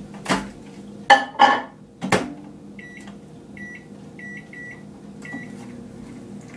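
Microwave oven being started to defrost frozen chicken: clunks and clatters as the door is opened and shut, then five short keypad beeps as the time is set, and the oven starts running with a faint steady hum.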